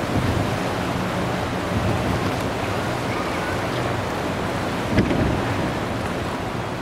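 Steady outdoor noise of wind on the microphone and the high, flowing river, with a faint low hum underneath and one sharp knock about five seconds in.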